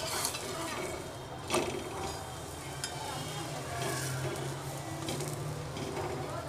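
Oiled paratha sizzling on a hot tawa while a metal spatula flips it and presses it down, with scraping and one sharp clink of the spatula on the griddle about a second and a half in.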